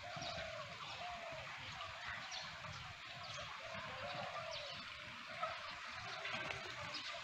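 Birds chirping over faint outdoor background noise.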